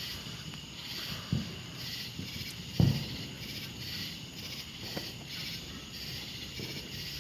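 Insects chirping outdoors in a steady pulsing rhythm, about two pulses a second, over a constant high drone. Two dull thumps come in the first half, the louder one near the middle.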